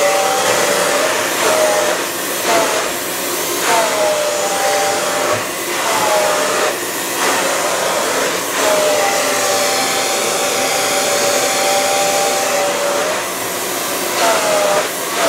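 Handheld hair dryer blowing steadily on hair close to the head. Its whine dips briefly in pitch and recovers several times.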